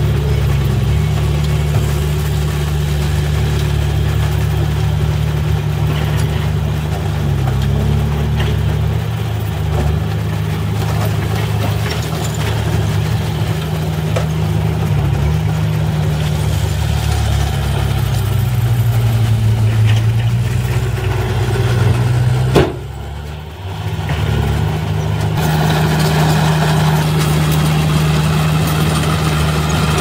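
A diesel dump truck's engine runs steadily while the loaded bed tips its soil, its pitch shifting a few times. About three-quarters of the way through there is a sharp click and a brief drop, after which a small crawler bulldozer's diesel engine runs steadily.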